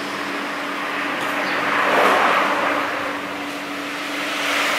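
Road traffic passing on a busy highway: a vehicle swells past about two seconds in and another near the end, over a steady low hum.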